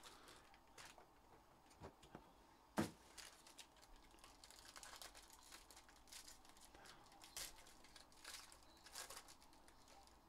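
Foil trading-card pack wrapper being torn open and crinkled by hand, faint, in many short crackles through the second half. One sharp click a little under three seconds in is the loudest sound.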